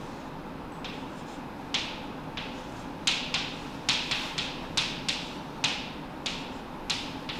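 Chalk tapping and scraping on a blackboard as marks are drawn: short, sharp strokes, a few at first, then about three a second from about three seconds in, over a faint steady room hum.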